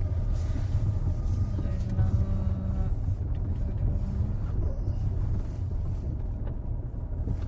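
Fiat Panda driving, heard from inside the cabin: a steady low rumble of engine and road noise, with a faint held hum for a few seconds in the middle.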